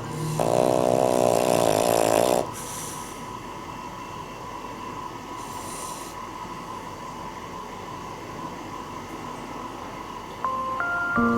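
Cavalier King Charles Spaniel snoring: one loud, long snore with a wavering pitch in the first two seconds, then quieter breathing with two faint snores. Soft music comes back near the end.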